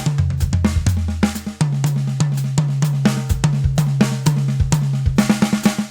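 Drum kit played in a busy groove: rapid snare strokes with bass drum, hi-hat and cymbal hits, over sustained low pitched notes.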